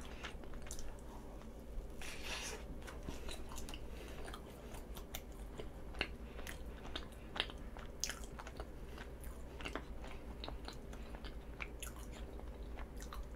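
Close-miked chewing and biting of a soft, chewy squid-ink cheese bread, with many small irregular wet mouth clicks.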